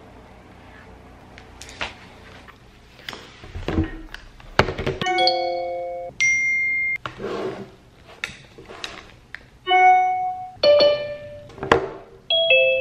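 Background music: a sparse track of chime-like keyboard notes over light percussive clicks and thuds. It is faint for the first three seconds or so, then grows louder.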